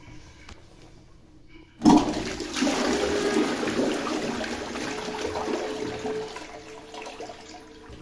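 Keramin ceramic toilet flushed with the cistern's push button: a sudden rush of water about two seconds in, swirling and gurgling through the bowl, then tapering off over the last couple of seconds.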